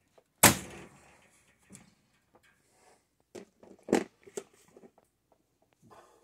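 Corded electric staple gun firing once with a sharp bang, driving a staple through chicken wire into a wooden frame. This is followed by lighter knocks and a second thud about three and a half seconds later as the tools are handled.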